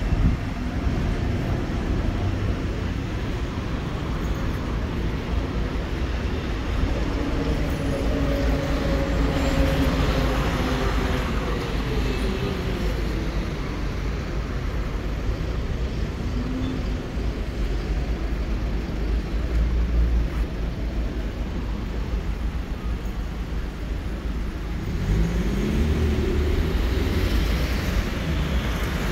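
City street traffic: a steady rumble of cars, with one vehicle's engine passing about a quarter of the way in and another revving up and pulling away near the end.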